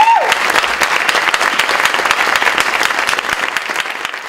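Audience applauding, a dense, steady clatter of many hands clapping that thins and fades near the end.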